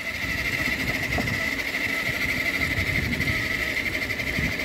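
Electric chainsaw's universal motor, run through a light dimmer as an e-bike drive, whining steadily at a high pitch while the bike rides along, over a low uneven rumble of wind and tyres on the road.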